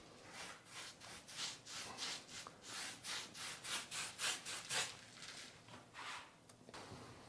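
Pure-bristle paintbrush spreading a base coat of lime mortar over a painted plasterboard panel: rapid back-and-forth rubbing strokes, about three a second, thinning out after about five seconds.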